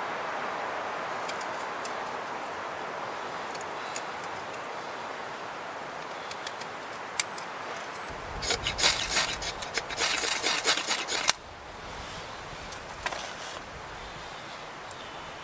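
A bushcraft knife shaving curls off a stick over a wooden stump, with light scattered scrapes. About eight seconds in comes a burst of fast, hard scraping strokes for about three seconds that stops suddenly: sparks being struck into the shavings to light the fire.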